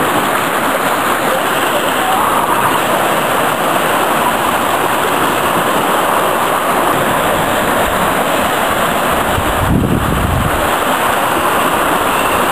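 Surf washing against a rocky shore: a steady, loud rush of water, with a brief low rumble about ten seconds in.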